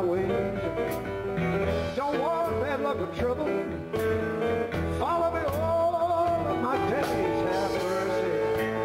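Live band playing a song with a man singing over electric guitar and keyboards; his voice holds long notes through the middle while the chords ring on steadily underneath.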